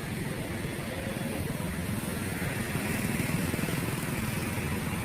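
Steady vehicle engine and road rumble, a continuous low drone with noise above it.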